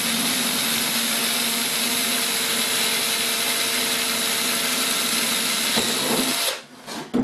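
Cordless drill with a 7mm bit running at a steady speed, boring out a hole in a thin, brittle plastic novelty hockey mask. It stops abruptly about six and a half seconds in.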